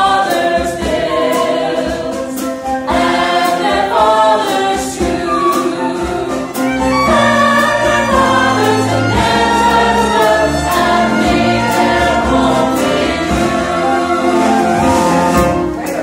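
Musical-theatre chorus singing in harmony with a small pit band, the voices holding long notes over a steady bass line.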